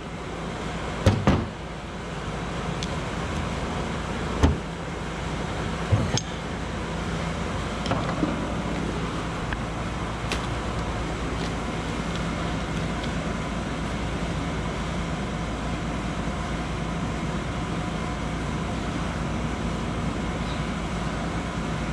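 A steel tool knocking and clinking against a steel bearing housing while an oil seal is pried out of it, a few sharp knocks in the first six seconds and fainter clicks after, over a steady low background hum.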